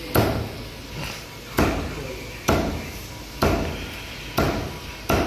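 Meat cleaver chopping a large fish into pieces on a wooden block: six heavy strikes, about one a second.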